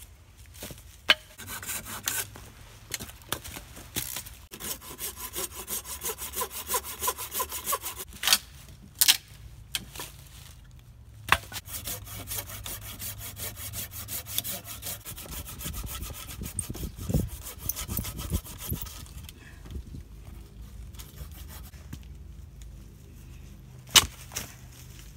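Hand saw cutting through a log for firewood in two long spells of quick back-and-forth strokes, with a few sharp knocks between them.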